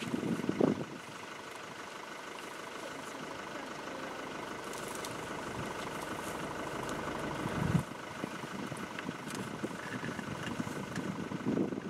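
Open safari game-viewing vehicle's engine idling steadily, with two brief low thumps, about half a second in and near eight seconds.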